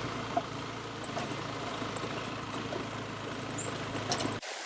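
Motorbike engine running steadily under road and wind noise while riding, cutting off abruptly near the end.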